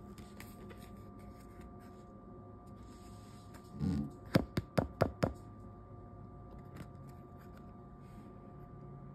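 Hands handling a small paper card and stickers: soft rustling, then a quick run of five sharp taps a little over four seconds in.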